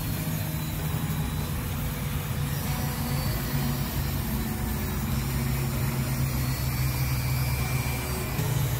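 Dremel rotary tool running steadily, its small disc bit grinding away the rock matrix around almandine garnet crystals.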